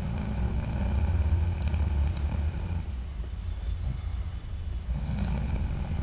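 A man snoring in his sleep: a low snore lasting about three seconds, a lull, then the next snore starting about five seconds in.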